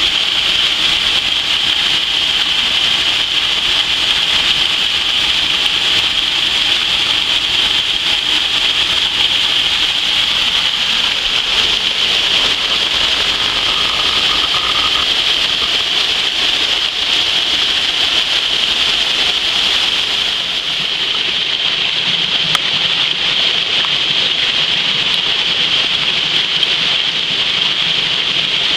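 Rain-swollen wet-weather waterfall: water pouring over a rock ledge onto stone, a loud, steady rush.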